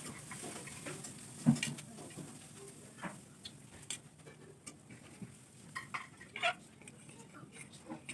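Scattered clinks and knocks of plates and cutlery as noodles are eaten, with one sharper knock about a second and a half in.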